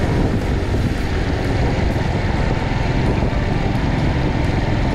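Suzuki Volty 250 motorcycle being ridden: its engine running steadily under a constant rush of wind noise.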